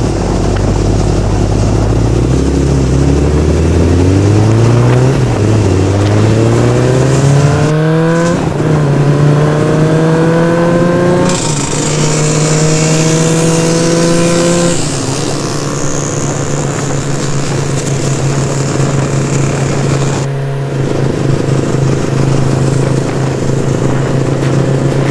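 An engine accelerating through the gears: its pitch climbs steadily, drops back at a gear change about 8 seconds in and again about 11 seconds in, then settles into a steady cruising note for the second half.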